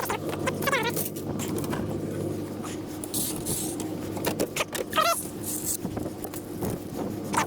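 Long metal scrap pieces being handled and loaded: clanks and rattles, brief scraping, and short wavering squeaks of metal rubbing on metal, over a steady low hum.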